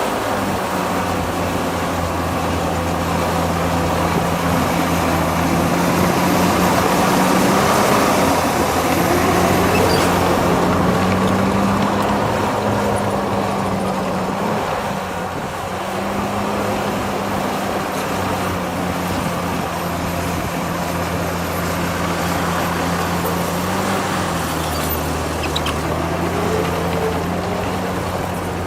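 Diesel engine of heavy earthmoving machinery running under load, its engine speed shifting up and down a few times.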